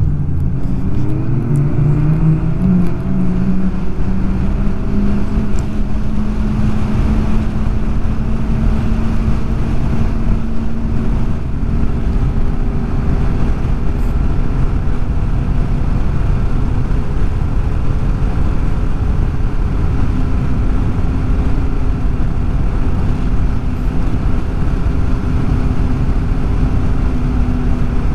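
Snowmobile engine under way on a trail. Its pitch climbs over the first few seconds as it speeds up, then holds steady at cruising speed over a heavy low rumble.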